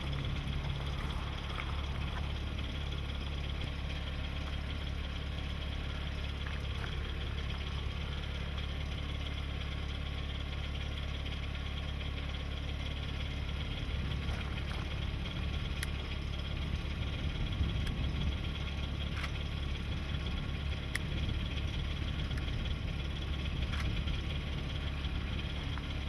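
Car engine idling: a steady low hum with a few faint ticks.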